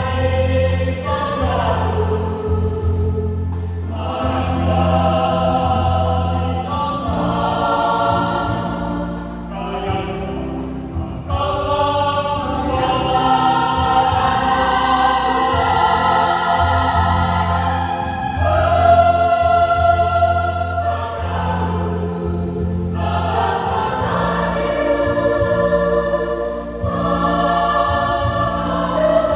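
Youth church choir singing a hymn in several voice parts, in long held phrases, with a low sustained bass note under much of it.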